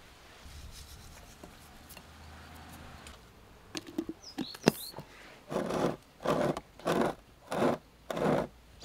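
A few light clicks and knocks, then five rhythmic rasping strokes starting about halfway through, each under half a second long and about 0.7 seconds apart.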